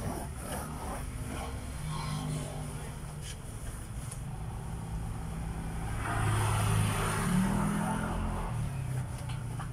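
Road traffic going by: a steady engine hum, with one vehicle passing louder from about six to eight seconds in, its engine pitch rising as it goes.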